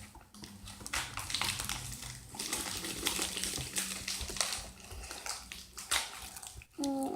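Sticky slime being squished and pulled by hand: irregular wet squelches and crackles.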